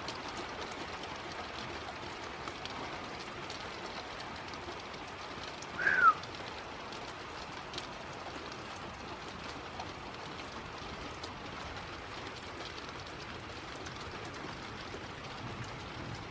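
Steady rain falling, with faint scattered drips. About six seconds in comes a single short chirp falling in pitch.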